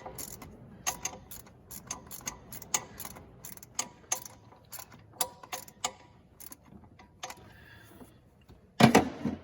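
Ratchet wrench clicking in short runs as a nut is tightened down on the starter motor's main power terminal, with one louder clunk near the end.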